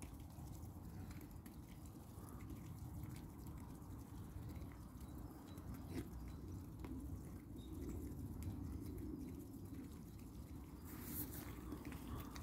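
Mute swans pecking sweetcorn off bare earth: faint, scattered taps and clicks of their bills over a steady low rumble.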